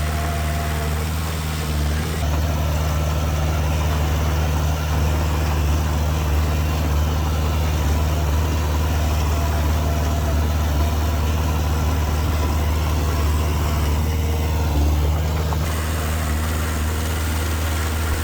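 Heavy-equipment diesel engine running steadily with a deep, even hum and no clear revving.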